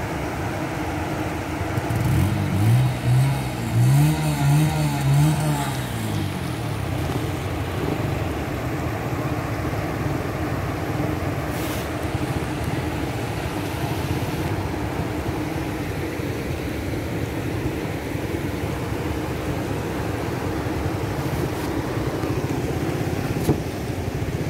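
Floodwater rushing steadily across a submerged road. For a few seconds near the start, a louder pitched sound rises and falls over it.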